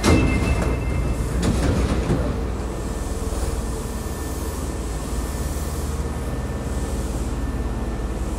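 Hankyu 5300-series electric train standing at an underground platform. Two short bursts of noise come in the first two seconds, then the train's equipment hums steadily with a faint high tone above it.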